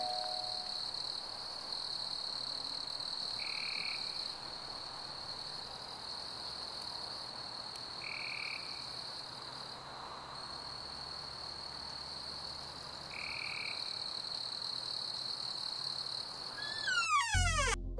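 Horror-film ambient sound design: a steady high drone with a short chirp about every five seconds. Near the end a run of falling tones sweeps down into a deep boom.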